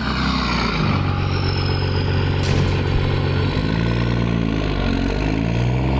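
A motor engine running with a low steady note, then revving up and down several times from about three and a half seconds in.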